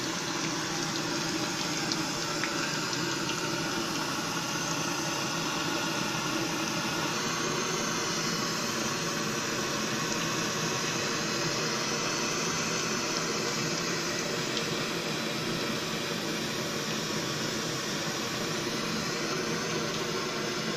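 Masala-battered cauliflower florets deep-frying in hot oil: steady, vigorous sizzling and bubbling. The bubbling is still heavy, a sign that the cauliflower is not yet cooked through; it settles once the pieces are done.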